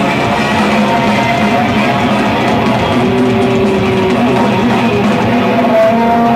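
Rock band playing live: electric guitars, bass guitar and drum kit, with long held notes over the drums.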